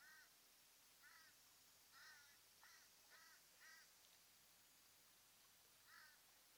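Faint, short, harsh calls from a bird, seven in a loose series: six in quick succession over about four seconds, then one more after a pause of about two seconds.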